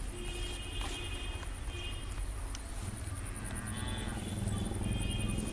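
Rural outdoor ambience: a steady high pulsing trill and short repeated chirps over a low rumble that swells about halfway through, with a couple of faint knocks.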